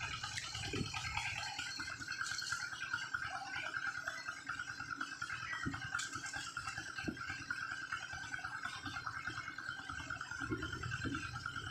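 Steady, high, rapidly pulsing insect buzz, with a few soft rustles and knocks of hands working among dry leaves.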